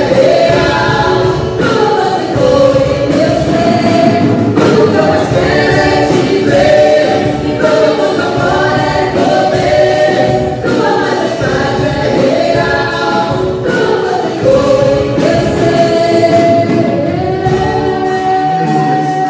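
Choir singing a gospel worship song, several voices together in sustained lines.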